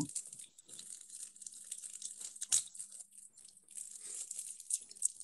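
Faint crackling and rustling with scattered small clicks, over a faint low steady hum that stops near the end.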